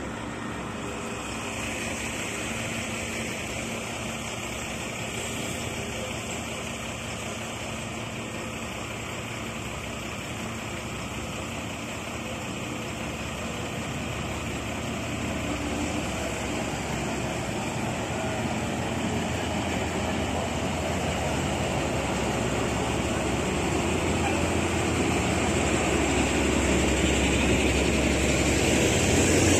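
Diesel locomotive's engine running as it slowly approaches hauling passenger carriages, growing steadily louder over the second half as it draws alongside.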